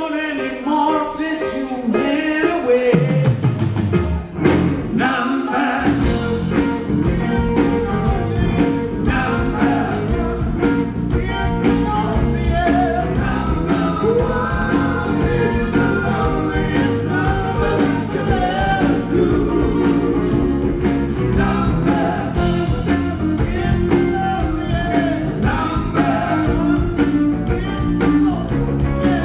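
Live rock band playing, with singing over electric guitars, bass, drums and keyboards. A falling slide in the low end about two to four seconds in leads into the full band.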